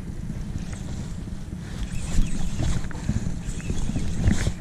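Wind buffeting the camera microphone on an open boat, a constant low rumble, with a few irregular knocks in the second half, the loudest near the end.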